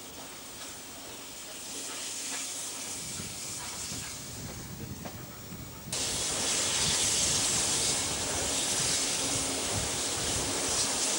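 Steam hissing from C38-class steam locomotive 3801, loud and steady from about halfway in, as the train runs along the platform. The first half is quieter, with faint clicks.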